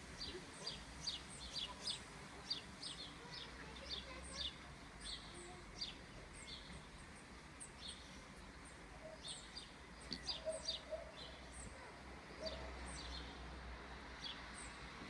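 Birds chirping: a steady run of short, high chirps, one to three a second, over faint steady outdoor background noise.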